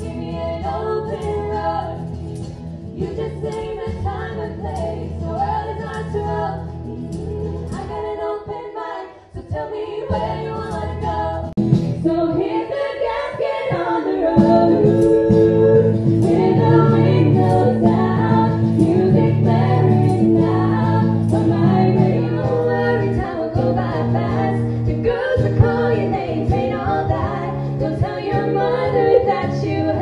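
Live country music: female voices singing in close harmony, with an acoustic guitar. The music drops out briefly about nine seconds in and comes back louder.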